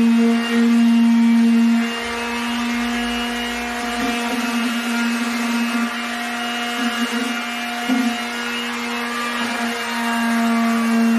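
Fisch electric orbital sander running on plywood, a steady motor hum with a whine above it. It is a little louder for the first couple of seconds, and its pitch wobbles briefly several times later on.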